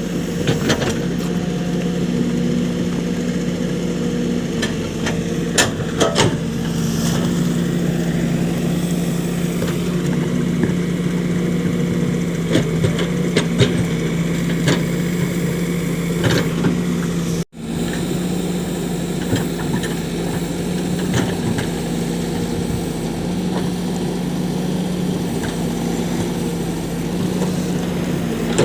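Diesel engine of heavy farm or construction machinery running steadily, with a few sharp clanks and knocks from the machine working. The sound cuts out for an instant about two-thirds of the way through.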